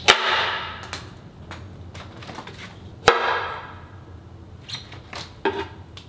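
Kitchen knife chopping a carrot on a plastic cutting board: two sharp chops about three seconds apart, each ringing off briefly, with a few lighter taps between.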